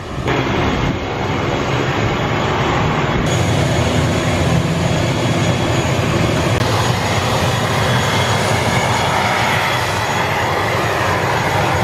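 Engine of a parked twin turboprop airliner running steadily on the apron: a loud steady rush with a thin steady whine over it.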